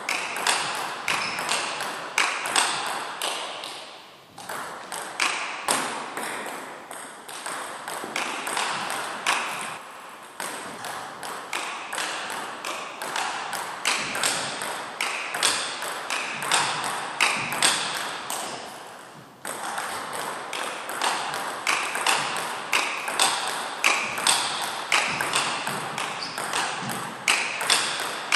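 Table tennis rally of backhand topspin strokes, one bat a Donic Acuda S3 rubber on a Butterfly Primorac Carbon blade: a quick, even run of ball clicks off the bats and the table, a few a second. The rally breaks off briefly about four seconds in and again near nineteen seconds, then starts again.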